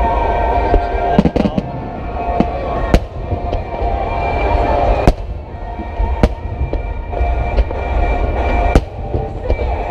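Aerial firework shells bursting: about half a dozen sharp bangs at irregular intervals over a steady low rumble. Music plays underneath.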